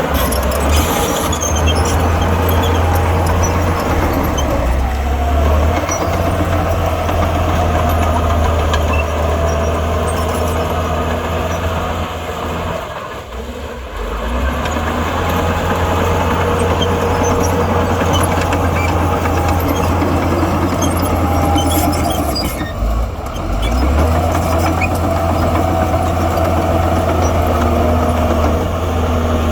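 Heavy earthmoving machine's diesel engine running hard under load, with a wavering whine on top; the engine note drops briefly about 13 seconds in and again about 23 seconds in.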